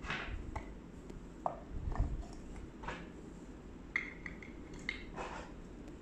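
Light, scattered knocks and taps of wooden toy pieces being handled: the plywood tiers and shape blocks of a wooden shape-sorter stacker bumping against each other.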